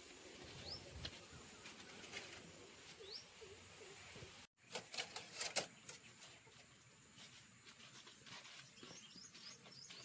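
Faint outdoor ambience: scattered clicks and light knocks, two short rising bird chirps, and a steady high-pitched whine that comes and goes. A louder run of clicks follows a brief break about halfway through.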